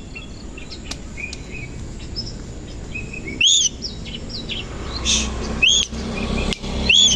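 Kacer koci, an oriental magpie-robin, singing: soft chirps and short whistles, punctuated three times by a loud, sharp arched note.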